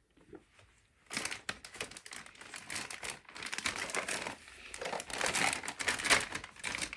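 Clear plastic zip-top bag crinkling and rustling as plastic snack containers are pushed into it, starting about a second in.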